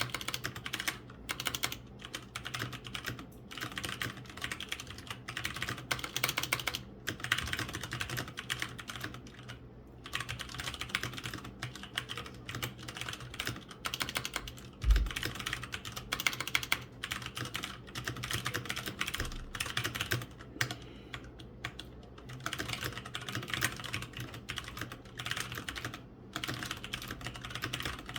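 Typing on an Aula F2088 mechanical keyboard with Cherry MX Ergo Clear tactile switches and Redragon keycaps: runs of fast key clacks with short pauses between them. About halfway through there is one heavier thump, the loudest sound.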